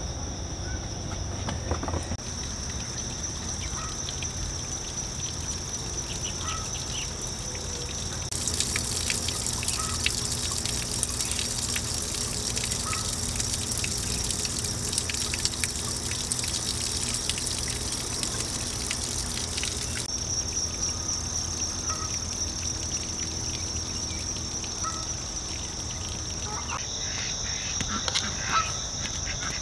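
Outdoor ambience of insects chirring steadily in a high, even band, with water trickling into a garden goldfish pond for about twelve seconds in the middle.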